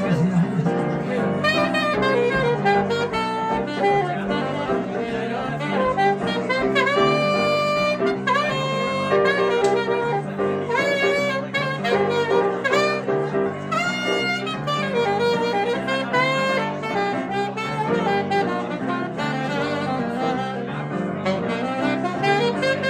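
Saxophone and grand piano playing jazz live, the saxophone carrying the melody over the piano's chords.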